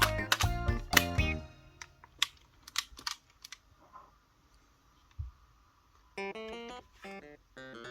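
Music with plucked, guitar-like notes: a quick run of notes that breaks off, a quiet stretch with a few sharp clicks, then separate ringing notes with short gaps near the end.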